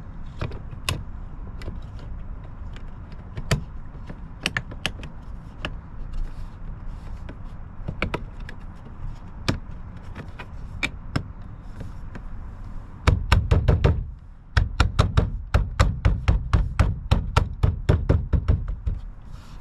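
Plastic door-handle parts being handled and clicked into place by hand: scattered sharp clicks and knocks, then near the end a quick run of clicks, several a second.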